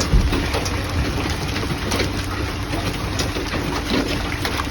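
Hailstones pelting a vehicle's roof and glass in a dense run of clicks and taps, over the steady hum of its idling engine, with one heavier hit just after the start.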